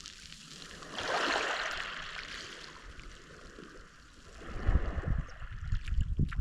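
Mediterranean Sea waves washing on the shore: one wave surges in about a second in and fades away over the next two seconds. In the second half, low irregular rumbling of wind buffeting the microphone.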